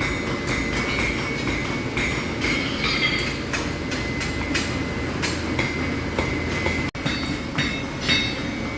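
Hand hammer striking small stock on an anvil in quick, uneven blows, the anvil ringing with a high steady tone. The sound breaks off for an instant about seven seconds in.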